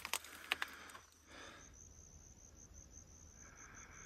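Faint insect chirping, cricket-like: a fast, even train of high-pitched pulses. A few sharp clicks and taps come in the first second.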